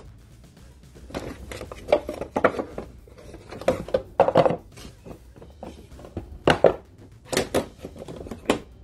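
Rummaging in clear plastic storage drawers and bins: a series of irregular knocks, clacks and scrapes of hard plastic. Near the end, thin wooden craft blanks knock together as they are handled and stacked.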